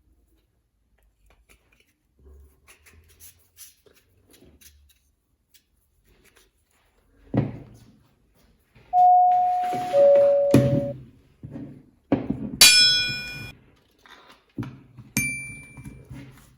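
Mostly faint handling knocks, then a thump, a clean two-note falling ding-dong chime, and several bright pitched musical notes near the end.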